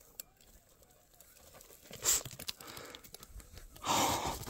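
A hand scraping and crunching through loose volcanic scoria gravel: a sharp crack about two seconds in, then small gritty crackles, and a short rush of breathy noise near the end.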